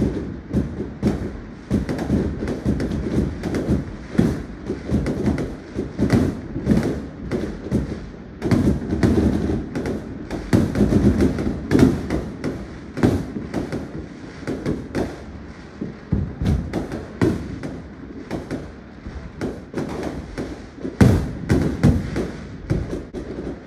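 Aerial fireworks going off in a dense, unbroken barrage of booms and sharp bangs, many shells bursting close together and overlapping.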